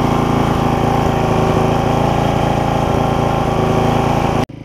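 Small single-cylinder Briggs & Stratton engine on a Craftsman counter-rotating rear-tine tiller, running steadily up close. It cuts off suddenly near the end.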